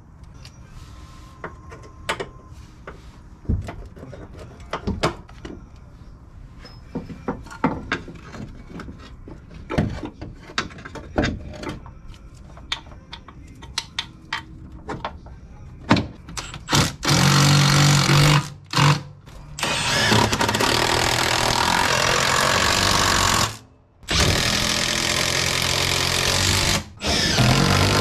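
Metal clicks and knocks of rear hub and trailing-arm parts being handled and fitted. In the second half an impact wrench runs in several long bursts of two to three seconds each, running bolts down.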